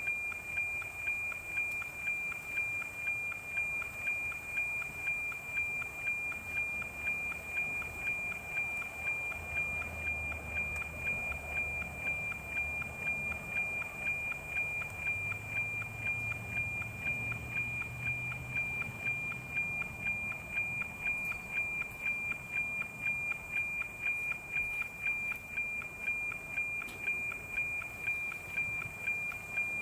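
NOAA 19 weather satellite's APT image signal, demodulated by an SDR receiver: a steady high tone with an even tick-tock beat twice a second, one beat for each image line.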